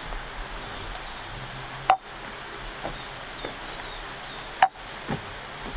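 Metal plates and cups being set down on a tabletop: two sharp clacks, about two and four and a half seconds in, with fainter knocks between and after. Faint bird chirps repeat in the background.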